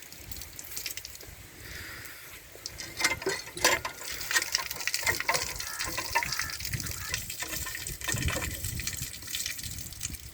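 Heavy rain falling, with water splashing: a steady hiss dotted with many sharp drip and splash sounds that grow busier about three seconds in.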